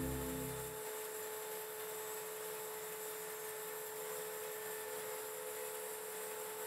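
Background music fading out in the first second, then a faint steady hum with a constant tone over a light hiss.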